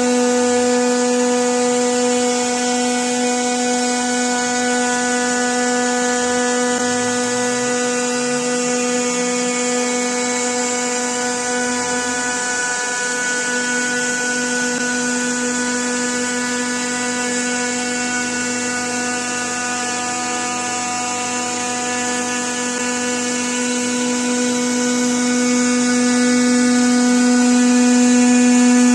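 CNC milling machine running with a steady whine, one constant pitch with many overtones and a hiss above it. Faint low tones rise and fall underneath in the first half, and it grows a little louder near the end.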